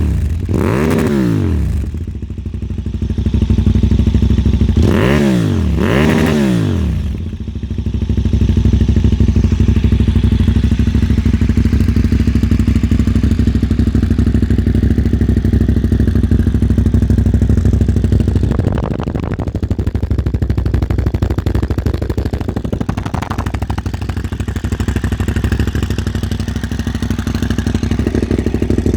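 KTM 990 Super Duke's V-twin engine through a LeoVince SBK Oval Evo II slip-on exhaust, idling with quick throttle blips: two short revs rising and falling right at the start, two more about five to six seconds in, then a steady idle.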